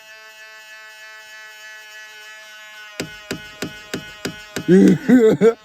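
The power side-mirror motor on a 2000 Ford Explorer buzzing steadily. About three seconds in, a run of sharp clicks starts, about three a second: the mirror's clicking or banging noise. Near the end a person laughs loudly over it.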